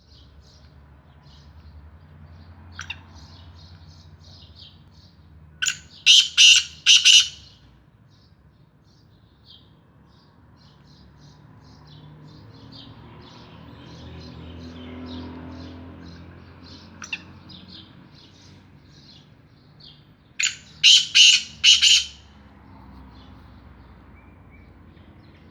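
Black francolin calling twice, each time a loud, harsh phrase of about four grating notes: once about six seconds in and again about twenty seconds in. Faint high chirping runs underneath.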